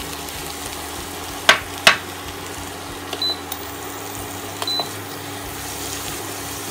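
Chopped vegetables and tomatoes sizzling in a nonstick frying pan as a silicone spatula stirs them, over a steady hum. Two sharp knocks come about a second and a half in, with a few lighter clicks later.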